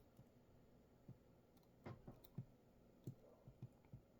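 Near silence broken by about eight faint, irregular small clicks.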